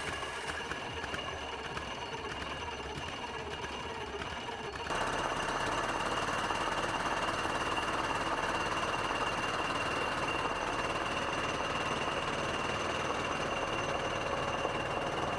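Boat engine running steadily, growing noticeably louder about five seconds in.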